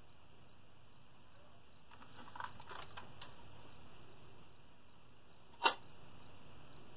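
Small clicks and light rattles of tools being handled at a workbench, a cluster of them about two to three seconds in, then one sharp click near the end, as a handheld soldering iron is picked up and brought to a connector. Faint steady room hum underneath.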